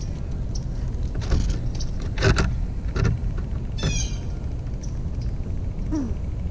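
An eastern gray squirrel pulling a slice of toast off a stack and scrambling away, making a few sharp scrapes and knocks. A short high call falls in pitch about four seconds in, over a steady low outdoor rumble.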